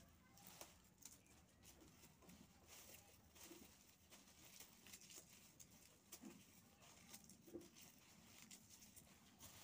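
Near silence with faint, scattered crackling rustles of dry shallot stalks and papery skins being handled and pulled apart.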